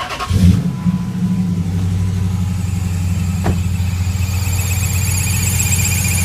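Car engine starting and settling into a steady idle. A high-pitched whine of several thin tones fades in about two and a half seconds in and grows stronger, the whining noise heard coming from the engine.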